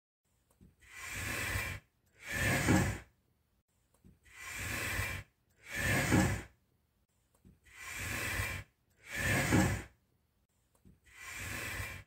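Rocking chair creaking as it rocks back and forth, each rock giving a softer stroke and then a louder one. The rock repeats three times, and a fourth begins near the end.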